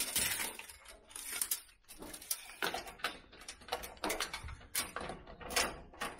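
Retractable steel tape measure being pulled out and handled against a wooden wall, giving a run of irregular small clicks and rattles.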